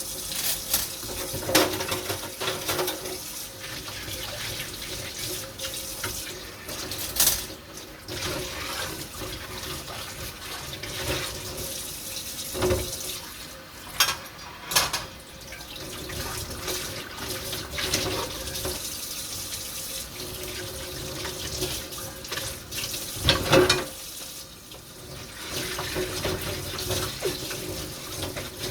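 Kitchen tap running into a sink during hand dishwashing, with the clatter and knocks of dishes and pans being handled every few seconds.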